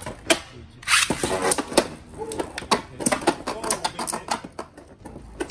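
Two Takara Tomy Beyblade Burst spinning tops, Brave Valkyrie and Infinite Achilles, whirring and clattering in a clear plastic Beyblade stadium. Rapid clicks and knocks come as they hit each other and the stadium wall, with a louder noisy stretch about a second in.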